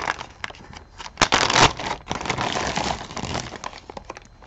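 A bag of jewelry being handled and opened: crinkling with many small clicks, loudest a little over a second in.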